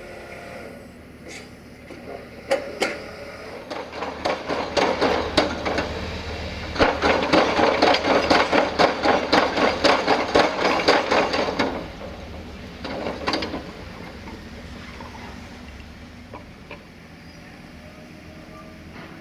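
Heavy construction rig hammering: sharp, ringing metallic blows, a few a second. They come scattered at first, then in a steady run for about five seconds that stops suddenly, with one short burst after.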